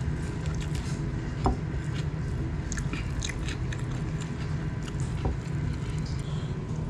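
Chicken biryani being eaten by hand: fingers working rice and pulling chicken on a plate, with chewing, in many small clicks and smacks, two of them louder. A steady low hum runs underneath.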